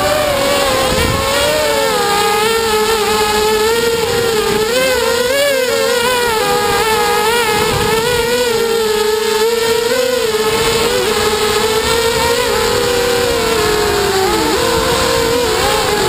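QAV250 racing quadcopter's motors and propellers whining, recorded from a GoPro mounted on the frame; the pitch wavers up and down as the throttle changes through the turns, dipping briefly near the end. Wind noise rushes underneath.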